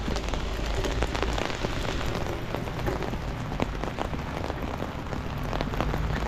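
Steady rain pattering on an open umbrella held just overhead: a dense run of separate drop hits on the canopy, over a low steady rumble.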